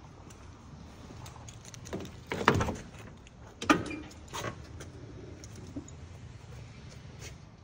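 Car door being opened on a Chevy Caprice: a handful of clicks and clunks from the handle and latch, bunched about two to four and a half seconds in. The two loudest clunks come about a second apart, over a low steady hum.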